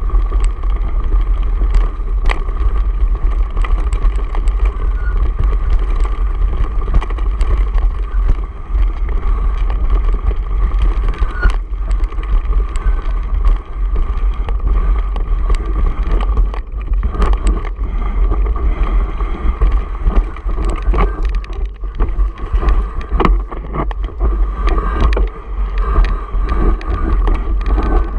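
Mountain bike descending a rocky singletrack: heavy wind buffeting on the camera microphone, with a constant rattle and many sharp clicks as the tyres and bike bounce over loose stones.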